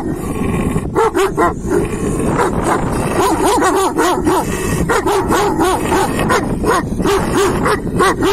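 Several large shepherd dogs barking at each other in a rapid, overlapping run of barks, about two to three a second, with no break.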